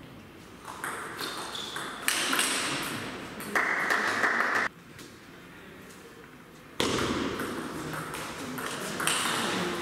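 A table tennis ball pinging off the rackets and the table in a rally. After a quiet pause of about two seconds, the sound picks up again with the next rally.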